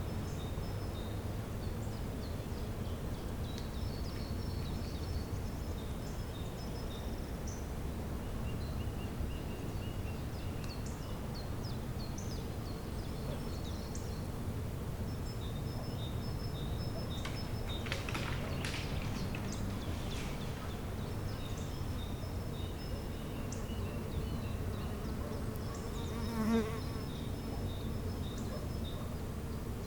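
Bees buzzing in a spring woodland, a steady low hum, with one passing close and louder near the end. Small birds chirp in short repeated high calls throughout.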